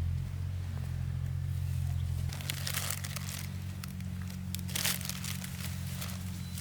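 Rustling and crinkling in two bursts, the second shorter, over a steady low hum.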